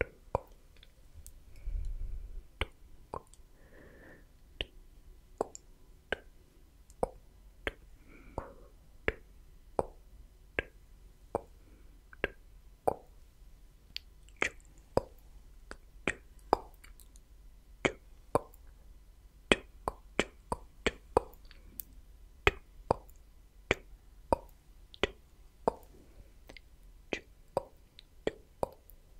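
Slow, close-miked ASMR mouth sounds: wet tongue clicks and lip pops ('tk', 'sk', 'chuko'), one or two sharp clicks a second, with a few soft breathy sounds between them. A low thump sounds into the microphone about two seconds in.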